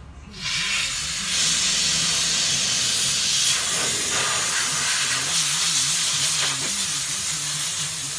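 Compressed air hissing steadily from an air line into a small ATV-style tire as it is inflated on its rim, starting about half a second in.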